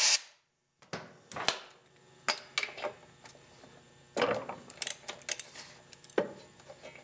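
A compressed-air blast cuts off at the very start, followed by a scattering of sharp metal clicks and knocks as a spark plug socket wrench is handled and fitted onto the spark plug of a small mower engine.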